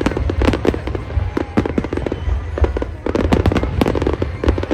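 Aerial fireworks going off in a rapid barrage: many overlapping bangs and crackles every second, with no break.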